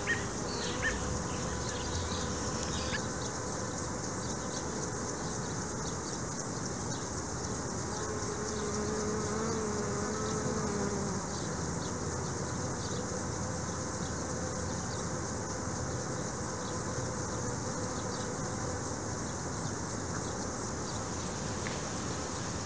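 Bees buzzing steadily, one coming close with a louder, wavering buzz between about eight and eleven seconds in. A few short bird chirps sound in the first three seconds.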